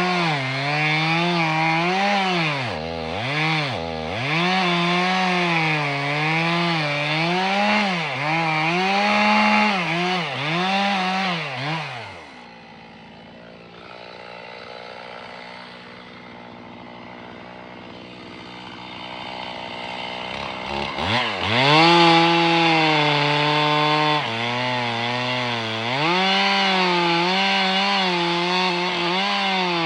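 Two-stroke chainsaw cutting into wood, its engine pitch rising and sagging as the chain bites. About twelve seconds in it drops to a quieter, steady idle for several seconds, then revs up again and goes back to cutting.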